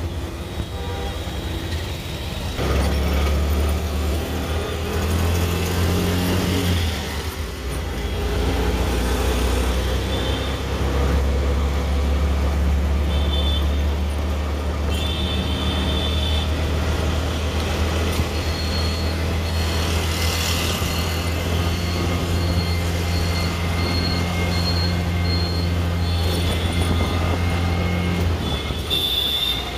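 Steady low engine hum of an auto-rickshaw on the move, with city traffic noise around it. Short high beeps recur through the second half.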